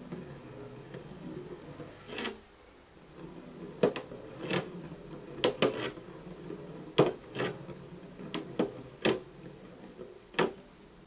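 Glass bottles rolling across a tabletop with a low, steady rumble, broken by about ten sharp knocks and clinks as the bottles are set down, caught and tapped against the table.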